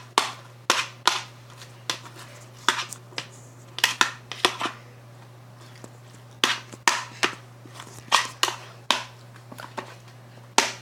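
A spoon stirring sticky white-glue slime in a bowl: irregular sharp clicks and knocks, some in quick little clusters.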